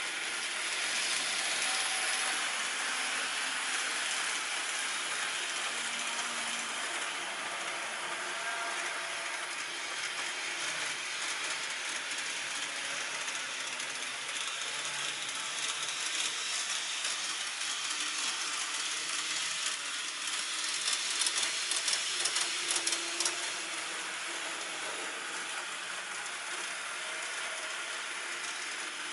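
Model trains running on a layout: a steady whirring clatter of small motors and wheels on the track, with a quick run of clicks about three quarters of the way through.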